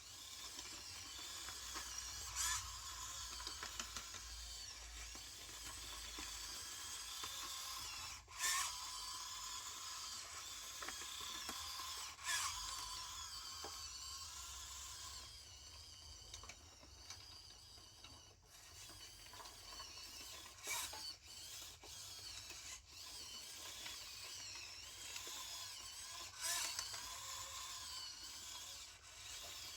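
Small electric drive motors and plastic gearboxes of a radio-controlled construction model whining steadily, the pitch wavering as the model moves. A few sharp clicks stand out along the way.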